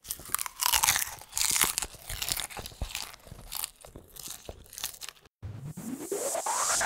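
Logo-intro sound effects: a run of noisy swishes and sharp clicks, some falling in pitch. They break off briefly about five seconds in, then a rising whoosh builds toward the start of electronic music.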